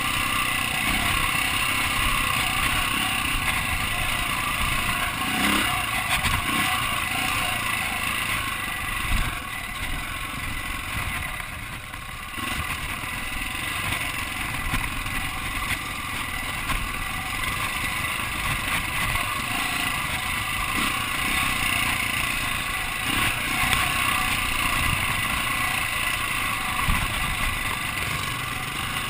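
Dirt bike engine running under way on a rocky trail, heard from on board, with the steady noise of the ride; the engine sound eases off for a few seconds about ten seconds in, then picks up again.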